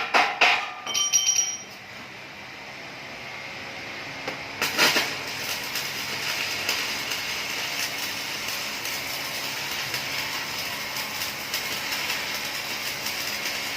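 A few sharp hammer blows on steel with a short metallic ring. From about five seconds in comes the steady crackling hiss of an electric welding arc on steel C-channel.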